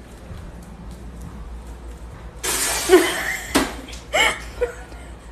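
Quiet room tone, then about halfway through a loud breathy gasp, followed by short yelps that rise in pitch and laughter: a startled reaction.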